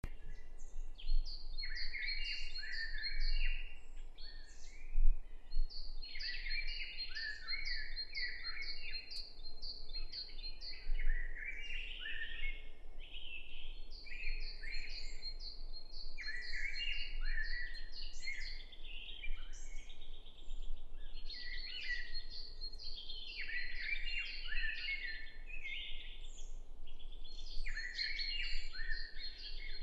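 Eurasian nuthatches singing: fast runs of short repeated high notes recurring every few seconds, over many short falling whistles, with phrases overlapping.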